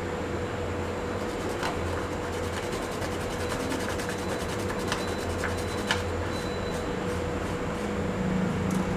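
Dried medicinal herb being rubbed back and forth on a wet grinding stone to make the paste for urai marundhu. It gives a soft scraping with a few light clicks over a steady hum.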